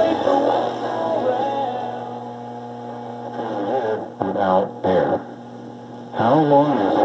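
Nordmende Rigoletto tube radio playing through its speaker: the broadcast fades away in the first couple of seconds, leaving a steady mains hum. Two short snatches of broadcast sound with wavering pitch come through about four and six seconds in.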